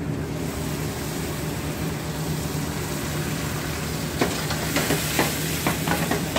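Tomato sauce sizzling in a hot pan of sautéed chicken and curry powder over a steady kitchen hum. From about four seconds in comes a quick run of metal clatters and scrapes as the pan is worked.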